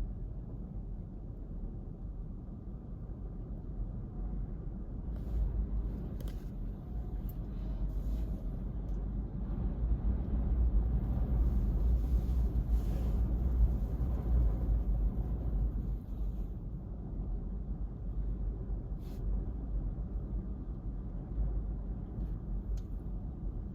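Low rumble of wind on the microphone mixed with breaking surf from a typhoon swell, growing louder through the middle and easing off again, with a few faint ticks.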